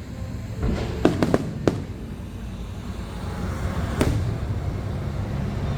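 Fireworks going off: a quick cluster of four or five sharp bangs about a second in, then a single bang about four seconds in, over a low steady rumble.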